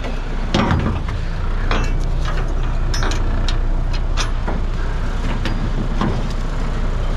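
Truck engine running steadily, with scattered clicks and knocks from ratchet straps and their metal buckles being handled against the steel frame of the load.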